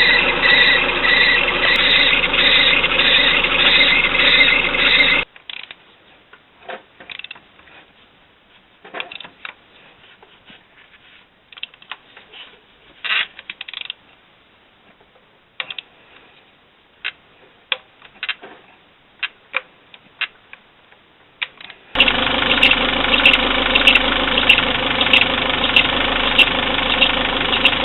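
Peugeot 206 S16's 2.0-litre 16-valve four-cylinder engine running with a rhythmic noise pulsing about twice a second, the annoying engine noise in question. It cuts off suddenly about five seconds in. Scattered quiet clicks and knocks follow, and the engine sound comes back abruptly near the end.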